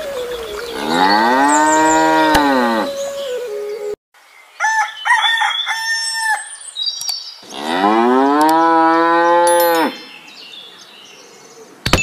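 Cow mooing dubbed in as a sound effect: two long moos, each about two and a half seconds, rising and then falling in pitch. Between them, about halfway through, there is a short patch of higher, chiming calls.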